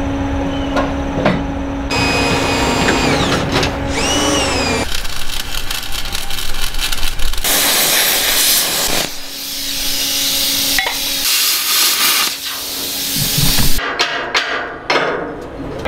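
Handheld electric drill boring through a steel bulwark, its motor whine rising and falling in pitch as the bit cuts. About halfway through comes the crackle and hiss of arc welding on a steel part, and a few sharp metal clanks near the end.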